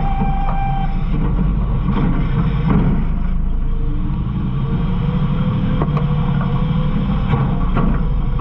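Garbage truck running, heard from inside its hopper: a steady low engine and hydraulic rumble, with several sharp knocks of trash and metal and a faint whine rising in the middle.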